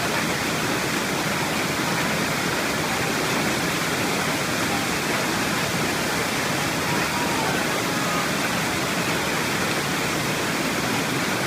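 Coban Rondo waterfall: water falling, a steady, loud, unbroken rush.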